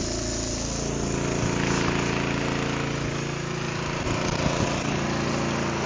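Brine sprayer's engine running steadily and driving the pump, with a hiss of brine jetting from the spray-boom tips.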